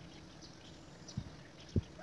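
Two dull, low thumps about half a second apart, over a faint hiss with scattered faint high ticks.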